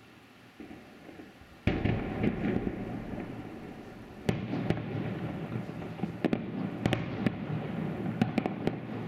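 Aerial firework shells of a fireworks salute bursting: a sudden boom about two seconds in, another about four seconds in, then a run of sharp cracking reports over a continuous rumble of echoing bursts.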